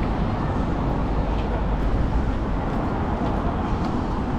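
Steady low rumble of city street traffic, an even wash of noise with no clear voices.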